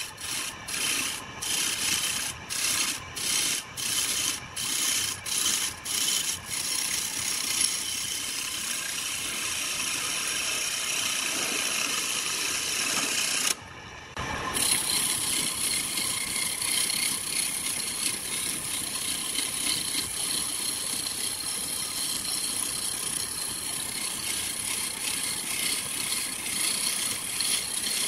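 A hand-held turning tool scraping and cutting a log spinning on a homemade belt-driven wood lathe, with a steady rasping hiss as shavings fly. For the first several seconds the cut comes in quick repeated strokes, then it runs on steadily. The sound breaks off for about a second halfway through.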